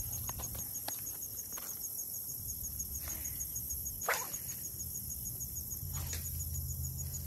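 Insects chirping in a steady, evenly pulsed high chorus, like crickets, with a few light clicks and one louder swish about four seconds in.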